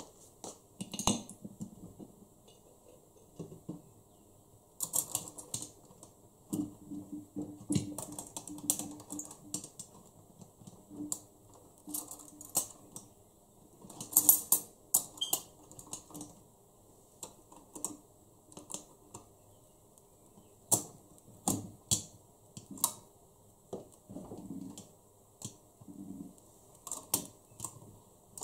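Irregular light clicks, clinks and knocks of hands working the steel lid and clamp latches of a clay pressure cooker, with the busiest burst of clicking about halfway through.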